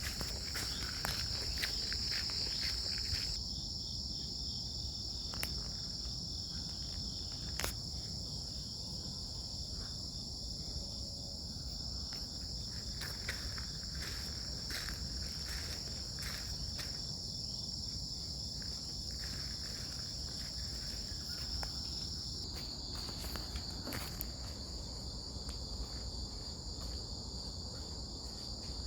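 A steady, high-pitched chorus of insects such as crickets, shifting slightly in pitch about two-thirds of the way through. Irregular footsteps on a path sound over it.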